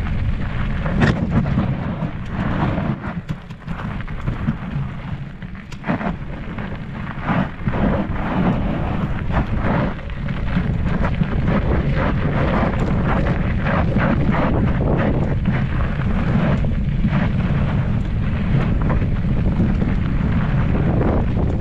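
Wind buffeting the microphone and tyre rumble from a mountain bike riding a rocky dirt trail, with frequent sharp clicks and rattles as the bike jolts over stones. It gets steadier and louder about halfway through.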